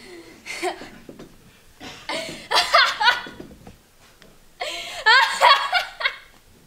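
A girl laughing in short bursts, loudest about two and a half seconds in and again about five seconds in.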